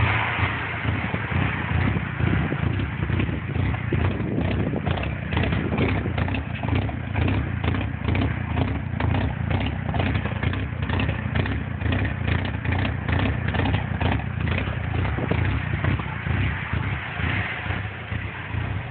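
Mitsubishi Eclipse GSX's turbocharged four-cylinder engine idling near operating temperature with an uneven, pulsing beat: a rough idle.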